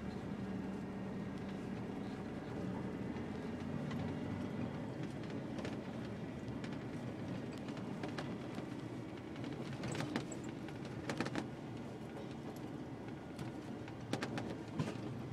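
In-cab sound of a 1989 Ford F-350 brush truck driving slowly through snow: a steady engine and drivetrain drone. A few sharp clicks and knocks come about ten seconds in and again near the end.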